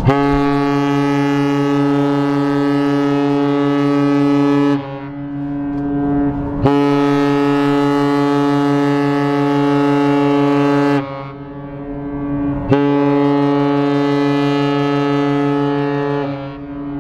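Cruise ship Oceania Sirena's horn sounding three long blasts of about four to five seconds each. It is a low, steady horn tone, and the tone lingers briefly after each blast stops.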